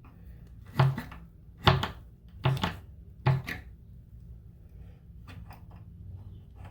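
Four sharp knocks on a hard part, a little under a second apart, then a few faint clicks.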